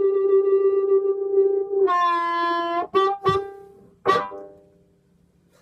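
Harmonica amplified through a bullet microphone: one long held note, then a higher note about two seconds in, a few short stabbed notes, and a final sharp note that rings away to near silence, ending the tune. A small click comes at the very end.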